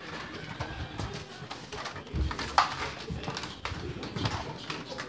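Handling noise from a handheld camera being swung around: irregular soft knocks, clicks and rustling, with a low thump about two seconds in.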